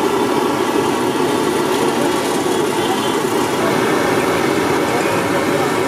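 Samosas deep-frying in a kadai of bubbling oil: a steady, even sizzle over a continuous low rumble.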